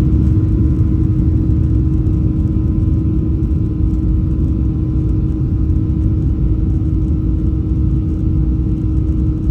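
Cabin noise inside a Boeing 737-800: a steady low rumble from its CFM56-7B turbofan engines and the airflow, with a steady humming tone over it.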